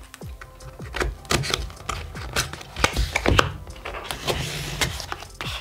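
Cardboard mailer box being opened by hand: irregular scrapes, rips and taps as its paper seal is torn and the box is turned over on the table.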